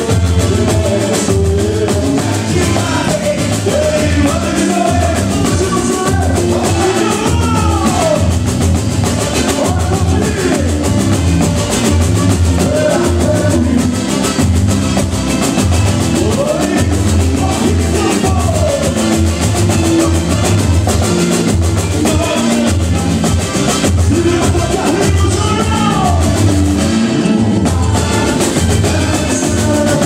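Live boi-bumbá toada: a man sings through the PA over a steady, heavy beat of large bass drums and other hand percussion, with guitar strumming along.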